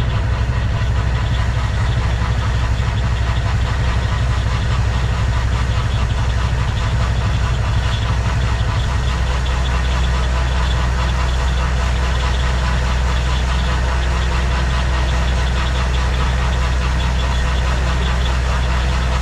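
Large farm machine's engine running at a steady speed: a deep, even drone that holds the same pitch throughout.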